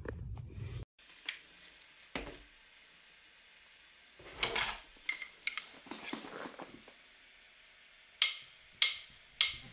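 Footsteps on a stony dirt track: a handful of separate crunches and scrapes, with three sharp steps in quick succession near the end. A low rumble runs at the start and cuts off just under a second in.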